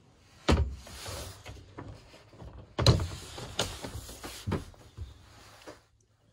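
Caravan cupboard and washroom doors being opened and shut by hand: two sharp knocks about half a second and three seconds in, then several lighter knocks and rattles of door and handle.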